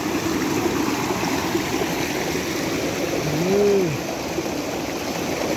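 Steady rushing of a stream's running water, with a short vocal sound from a person, rising then falling in pitch, about three and a half seconds in.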